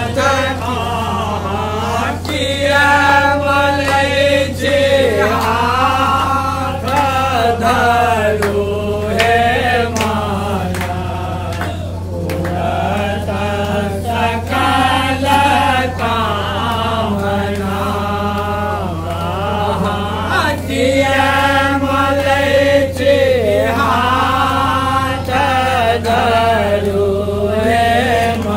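Maithili nachari, a devotional song to Shiva, sung in a wavering, held melody over a steady low hum.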